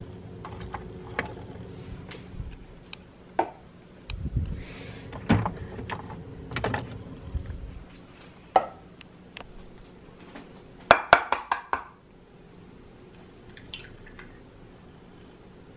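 Kitchen handling sounds: scattered knocks, clinks and thuds of eggs, a ceramic bowl and utensils on a wooden cutting board, with a quick run of sharp clicks about two-thirds of the way through.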